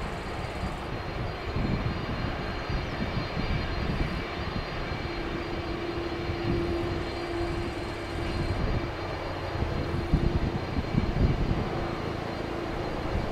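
Airbus A330 airliner's twin jet engines at taxi power as it rolls along the taxiway: a steady whine and rush over an uneven low rumble. A steady hum joins in about five seconds in.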